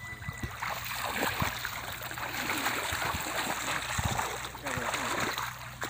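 Muddy water sloshing and splashing as a bamboo push net is shoved through shallow water by a man wading, with irregular splashes over a continuous swish.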